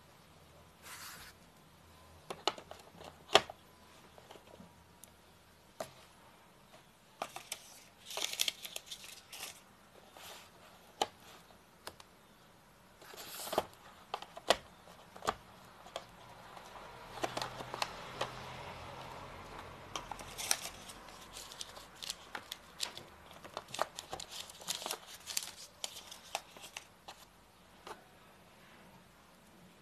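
Handling noise of a smartphone and its cardboard packaging: scattered sharp clicks and taps of the phone and box parts being picked up and set down, with brief rustling, and a longer scraping rustle a little past the middle.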